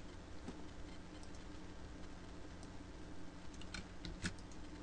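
Sparse light clicks from a computer keyboard and mouse, a few single taps and then a quick cluster near the end, over a faint steady hum.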